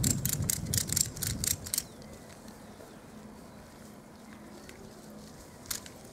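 A quick run of about eight sharp clicks or knocks, roughly four a second, over a low rumble, both stopping about two seconds in. After that a quiet outdoor background, with one more click near the end.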